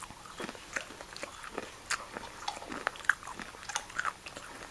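A person crunching and chewing a mouthful of chili lime butter toffee peanuts, with short, irregular crunches about three a second.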